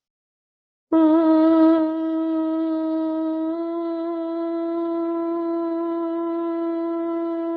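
Bhramari (humming bee breath): one voice humming a single steady note on the out-breath. It starts about a second in, wavers slightly and is louder for the first second, then is held evenly.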